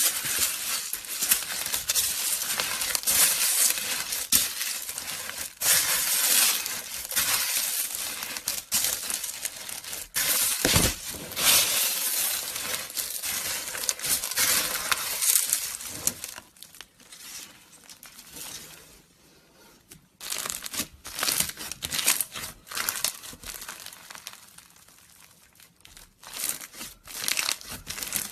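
Slime being squeezed and worked by hand, giving dense crackling and crinkling that thins out to sparser crackles for a while after the middle, then picks up again near the end.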